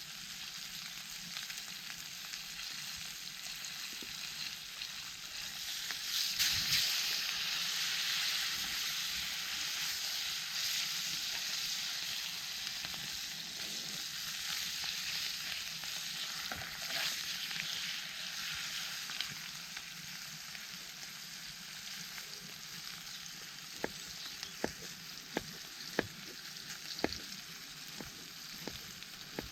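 Food sizzling in a pan over a campfire, growing louder about six seconds in and easing off later, with sharp pops and crackles near the end.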